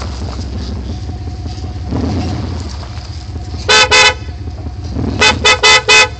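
Car horn honked in short blasts, two a little past halfway and then four in quick succession near the end, warning a dog away from the front tyre. A low steady rumble of the idling engine runs underneath.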